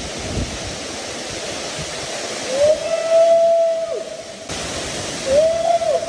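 Roncador waterfall pouring steadily into its pool, with a man's long held cry over it about halfway through, followed by a second, shorter one near the end.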